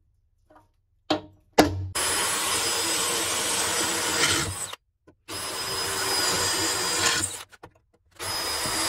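Two quick hammer taps on a centre punch, then a cordless drill boring through aluminium sheet. The drill runs three times for a few seconds each with a steady whine, stopping briefly between runs.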